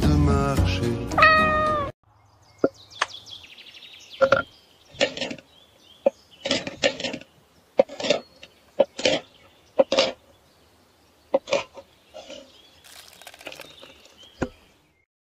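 Music ends abruptly about two seconds in, followed by a knife chopping a chocolate bar on a wooden board: a series of short, irregular chops with pauses between them.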